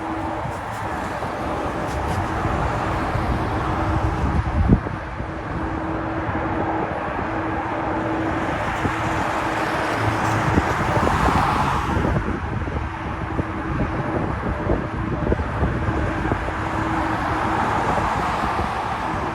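Jet engines of an Emirates Airbus A380 at takeoff power, a steady rushing noise with a low hum, swelling briefly around ten to twelve seconds in.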